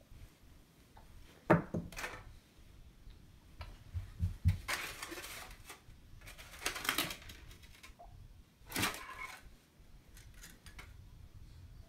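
Scattered light knocks, clicks and clatter with brief bursts of rustling, like things being handled and set down; the sharpest knock comes about a second and a half in.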